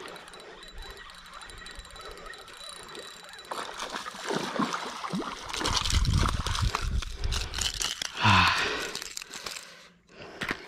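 A hooked arowana splashing and thrashing in the shallows as it is dragged onto a sandy bank, with handling noise. Irregular splashing builds about three and a half seconds in, is loudest a little after eight seconds, and stops abruptly near the end.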